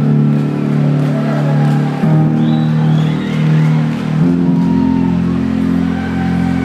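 Live concert music: sustained synthesizer chords over a low drone, the chord changing about two seconds in and again about four seconds in.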